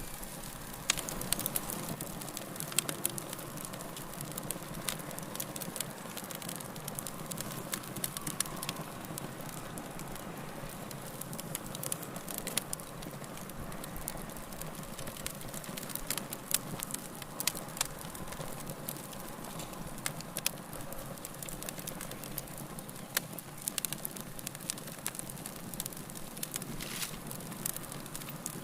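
Wood fire burning in a fireplace: a steady hiss of flames with frequent sharp crackles and pops at irregular intervals.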